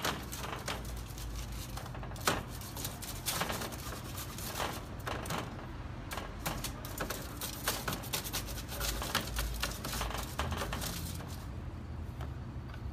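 Metal spatula scraping and clicking against a foil-covered baking tray and a plate as baked cookies are lifted off: a quick, irregular run of scrapes and taps that stops shortly before the end.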